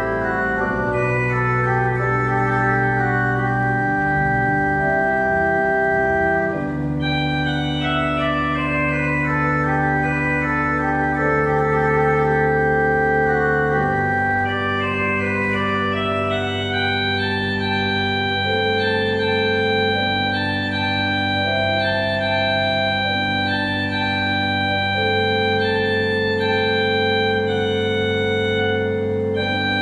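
Organ playing a Baroque chorale prelude: a chorale melody on a solo manual over sustained accompanying chords and long held pedal bass notes. Partway through, the upper voices move in a stepwise descending run.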